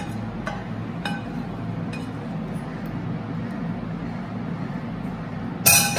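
A few light clinks of a serving spoon against a steel pan as a creamy spinach and mushroom mixture is spooned out, over a steady low hum.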